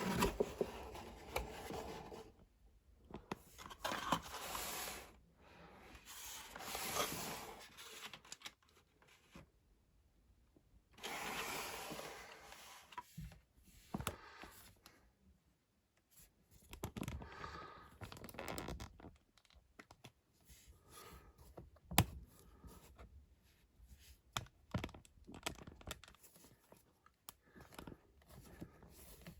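A cardboard Lego set box being opened by hand: several passages of cardboard tearing and scraping, then handling of the contents with many light clicks and knocks, one sharper knock about two-thirds of the way through.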